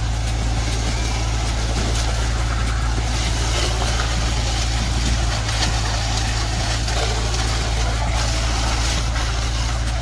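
Concrete pump truck running steadily under load while it pumps concrete through its boom hose into footing forms.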